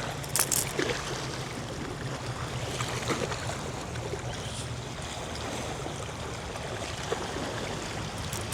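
Small waves lapping and splashing at the bay shoreline, a steady watery wash, with a few short clicks about half a second in.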